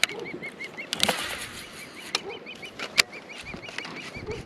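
A wild animal giving short, high chirping calls over and over, about five a second, with a few sharp clicks or taps over it, the loudest about three seconds in.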